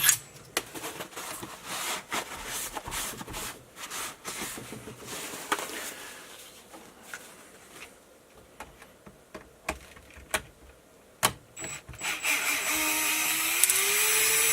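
Paper towel rubbing over a greasy RC car chassis, with scattered small clicks of tools and parts. Near the end an electric drill-driver runs for about two seconds, its whine rising in pitch.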